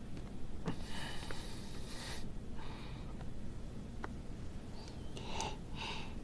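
A person's soft breathing: three breathy puffs of breath over a low steady hum, with a few faint clicks.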